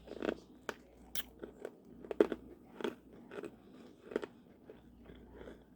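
Freeze-dried candy being bitten and chewed: a run of irregular, crisp crunches, the sharpest about two seconds in.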